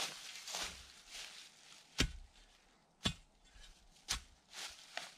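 Steel T-post being twisted and forced into rooty, rocky ground by hand: soft scraping and rustling, with three sharp knocks about a second apart near the middle.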